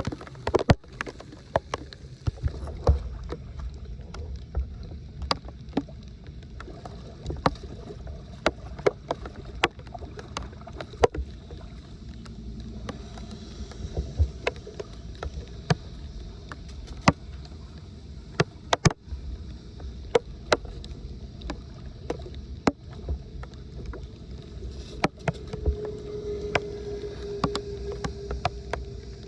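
Water sloshing and splashing with a steady low rumble, broken by many irregular sharp knocks and clicks; a steady hum comes in near the end.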